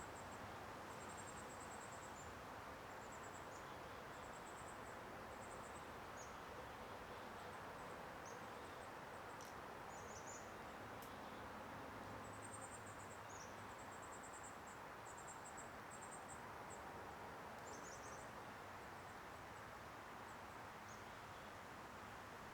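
Faint outdoor ambience: a steady hiss with scattered runs of very high, thin chirps and a couple of faint clicks.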